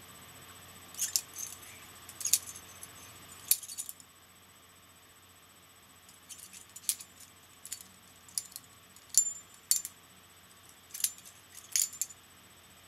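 Butterfly knife (balisong) being flipped through a thumb-over opening, its metal handles and blade clinking against each other in sharp, ringing clicks. A few clicks come in the first four seconds, then after a short pause a quicker run of clicks.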